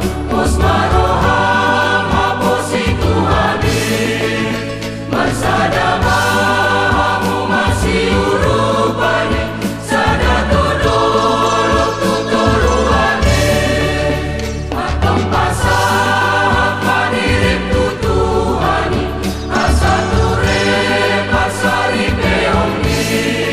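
Church choir singing a wedding song in several voice parts, in phrases a few seconds long, over low sustained bass notes.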